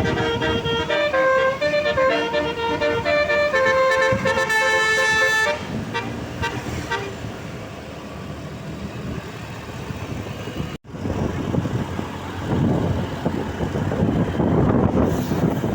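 A bus's basuri multi-tone melody air horn playing a tune of quick, changing notes for about five seconds, then falling away. After a sudden cut later on, a rushing road and wind noise takes over.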